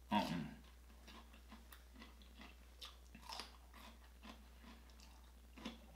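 Close-up chewing and biting of a mouthful of food, faint, with small wet mouth clicks and a louder bite right at the start.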